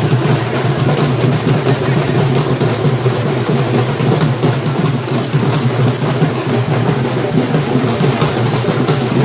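Dhol and nagada drums beaten together in a fast, steady, loud celebratory rhythm.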